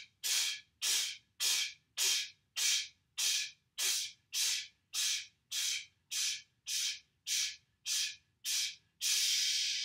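A man doing breath of fire, a forceful, rhythmic breathing exercise, in its fastest set. Sharp, hissing exhales come evenly at about one every 0.6 seconds, some fifteen in all. About nine seconds in they give way to one longer breath.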